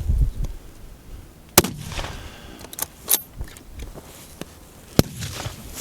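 Two fullbore target rifle shots, about three and a half seconds apart, each a sharp crack with a short echo. A few lighter clicks fall between them.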